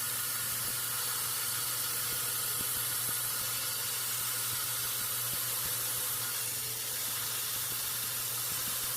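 Belt grinder running while a quarter-inch mild-steel knife guard is ground to shape, a steady hiss with a low motor hum underneath.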